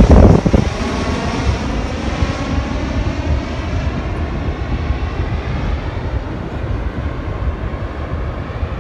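Small fixed-wing airplane's engines passing low overhead, loudest for the first half-second, then dropping to a steadier, fainter engine noise as the plane flies away.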